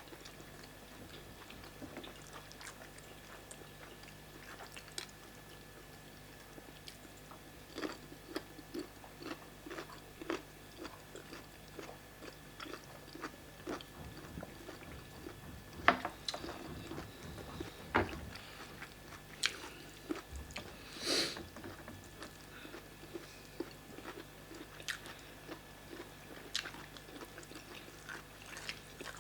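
Close-up eating sounds: people chewing pounded yam fufu, soup and meat, with irregular wet mouth smacks and small clicks and a few louder smacks along the way.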